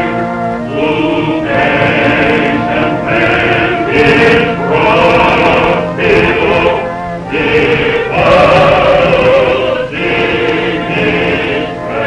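Choir singing a hymn in held chords, phrase after phrase with short breaks between them.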